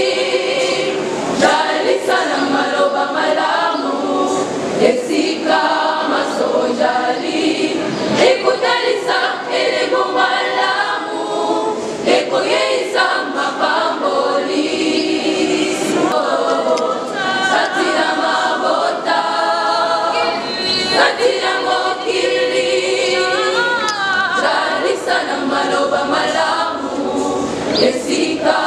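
Church choir singing a hymn, many voices together in harmony.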